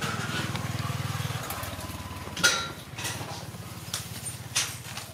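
A motor engine running steadily with a low, fast throb, louder for the first second and a half, with a few sharp clicks, the loudest about two and a half and four and a half seconds in.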